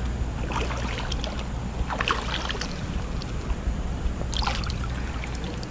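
Shallow river water splashing and sloshing as someone wades through it and reaches a hand into it, with a few brief splashes over a steady low rumble.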